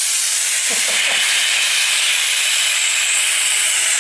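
Resin pressure pot being vented: compressed air rushes out of the release valve in a loud, steady hiss that starts suddenly.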